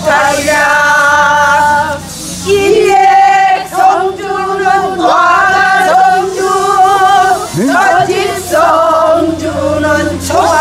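A group of women singing Korean traditional folk song (minyo) together, in long held notes that waver in pitch, with short breaks between phrases.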